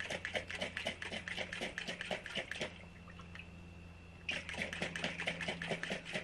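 Water sloshing inside a Thermos Funtainer kids' water bottle shaken hard upside down in a leak test, in rapid strokes several times a second. The shaking stops a little before the middle for about a second and a half, then starts again.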